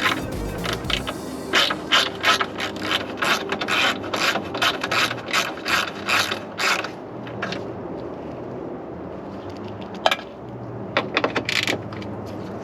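Hand ratchet wrench clicking in quick strokes, about three or four clicks a second, stopping about seven seconds in. After a pause there is a single sharp click, then another short run of clicks near the end.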